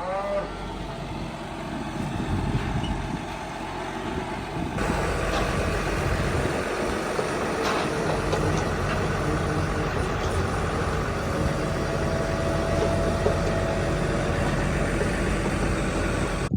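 A vehicle engine running steadily. About five seconds in the sound gets brighter and a little louder.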